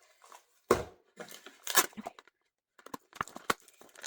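Doll box packaging being handled and pulled apart: a sharp thump under a second in, rustling of plastic and cardboard, then a quick run of small clicks.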